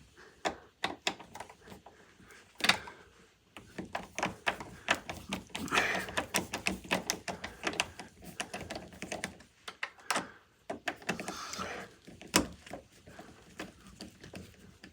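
Rapid, irregular metallic clicks and rattles, with a few sharper knocks, from a door's lock and deadbolt hardware being worked by hand while the deadbolt is taken out.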